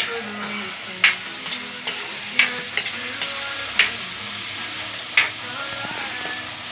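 Bitter gourd (ampalaya) frying in a pan with a steady sizzle as it is stirred. The spatula strikes the pan sharply four times, about every second and a half, with lighter scrapes in between.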